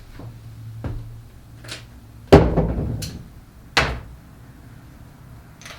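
A few separate hard knocks and clunks, like tools being handled and set down. The loudest comes about two and a half seconds in and rings out briefly; a second one follows about a second and a half later, with small clicks between.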